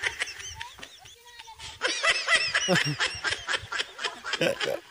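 People laughing in quick ha-ha pulses: a long burst starts about two seconds in, and another comes near the end.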